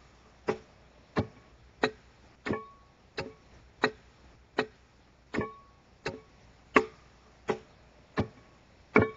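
An axe chopping into an oak log as a railroad tie is hewed by hand: steady blows about one and a half a second, about thirteen in all, several with a short ringing tone after the strike.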